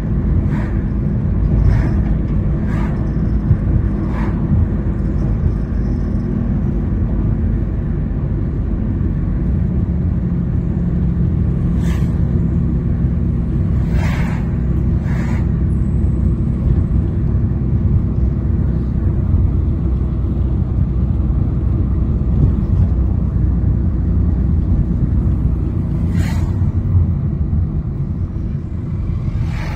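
Engine and road rumble of a moving car heard from inside its cabin, steady throughout, with a few short knocks now and then.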